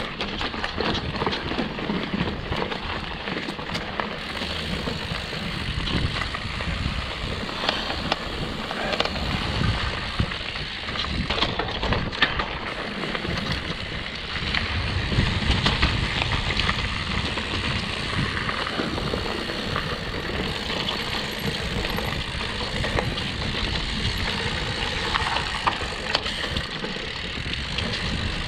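Mountain bike riding a dirt forest trail: a continuous rush of tyres rolling over dirt and wind on the microphone, with many small knocks and rattles from the bike over bumps.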